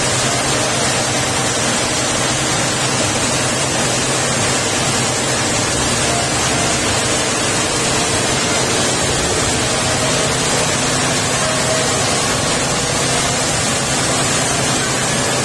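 Coffee milling machine running steadily: a constant loud rushing noise with a low hum underneath.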